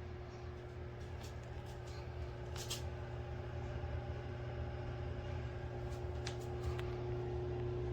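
Steady low machine hum with a constant mid-pitched tone running through it, and a few faint ticks here and there.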